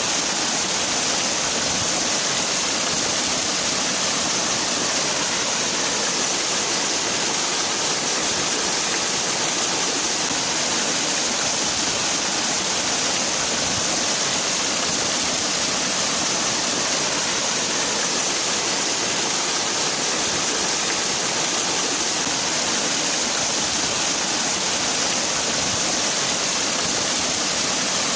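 Waterfall: water falling and splashing in a steady, unbroken rush with a bright hiss.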